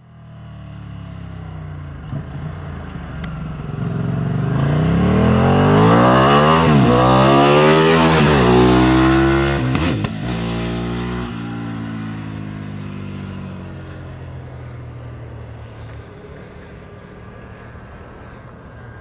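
Ducati 959 Panigale's L-twin engine accelerating hard, its pitch climbing and dropping back at each of several quick upshifts. It is loudest as the bike passes about ten seconds in, then falls in pitch and fades steadily as it rides away.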